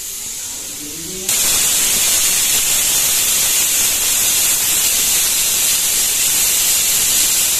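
Aluminium pressure cooker on a gas burner venting steam through its weight valve. A softer hiss jumps to a loud, steady jet of steam hiss about a second in. The cooker has come up to pressure while cooking dal and is letting off its whistle.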